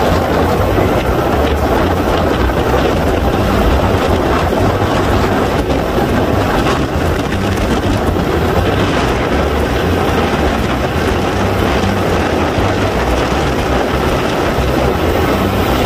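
Motorboat running at speed, its engine noise mixed with rushing wake water and wind buffeting the microphone; loud and steady.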